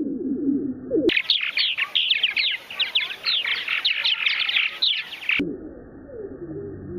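Purple martins calling, first slowed down into low gliding calls, then for about four seconds at natural speed as a dense chatter of quick high chirps, then slowed down again near the end.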